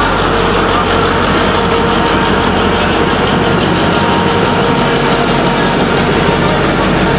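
EMD G8 diesel-electric locomotive's eight-cylinder two-stroke diesel engine running as the locomotive rolls slowly past at close range. A loud, steady drone with a held tone.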